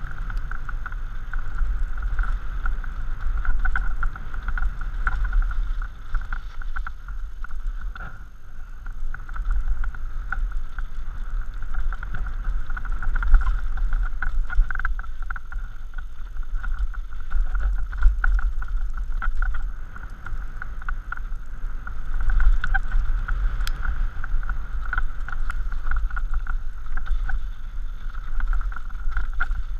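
Mountain bike descending a rocky dirt trail: wind rushing over a helmet-mounted camera's microphone and the tyres rolling over dirt and loose stones, swelling and easing with speed. A steady high buzz from the bike runs underneath, with occasional sharp knocks as it hits rocks.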